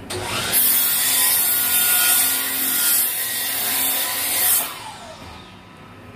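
Miter saw motor spinning up and its blade cutting through a wooden board, a loud, hissing cut of about four seconds. Then the motor winds down with a falling whine.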